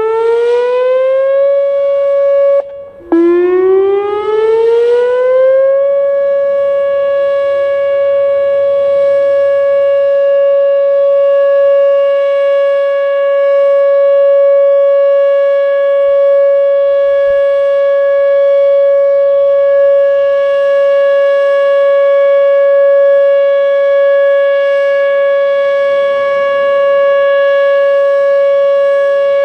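Whelen WPS-2807 electronic outdoor warning siren sounding its steady alert signal. It glides up in pitch to about 560 Hz, cuts out briefly about three seconds in, glides up again, then holds one steady tone whose loudness swells and fades slightly.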